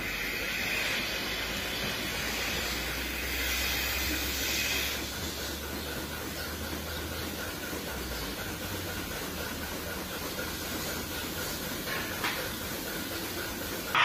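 Steady mechanical hiss over a low hum, the running background noise of dairy barn machinery such as fans and milking equipment, a little louder for the first five seconds.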